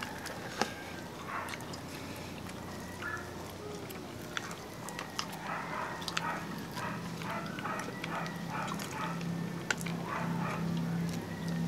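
Crunching and chewing of crispy deep-fried duck eaten by hand, with scattered sharp cracks as the crisp skin and bones are bitten and torn. A low steady hum sits underneath and grows stronger from about halfway through.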